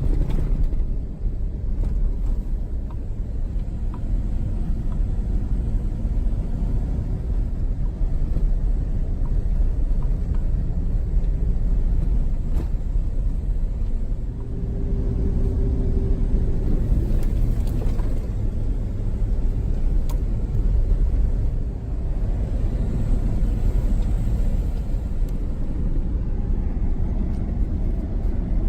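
Vehicle driving, heard from inside the cabin: a steady low rumble of engine and tyres on the road, with a brief hum about halfway through and a few light knocks.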